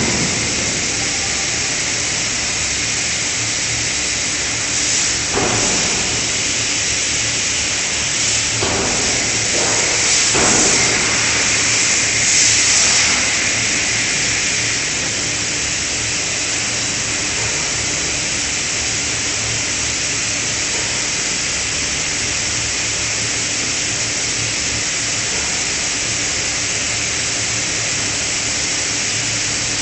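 Steady hissing with a low machine hum from the hydraulic die-forging hammer line, with a few faint knocks about 5, 9 and 10 seconds in and a short swell of hiss around 10 to 13 seconds.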